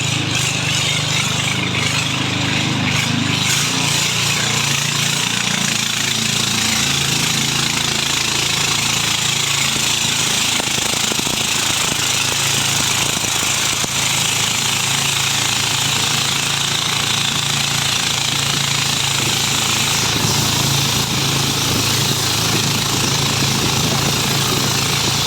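A small engine running steadily and close, with no change in speed.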